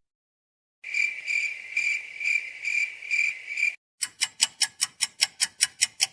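Two short sound-effect clips one after the other. First a high, shrill tone pulses about two to three times a second for roughly three seconds, like cricket chirping. Then, after a brief gap, a fast run of sharp ticks comes about six times a second.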